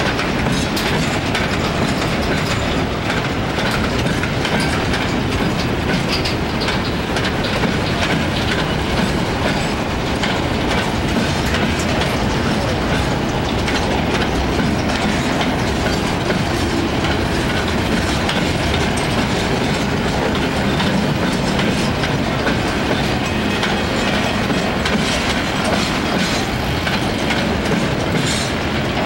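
Freight train of boxcars rolling past, its steel wheels running over the rails with a steady noise.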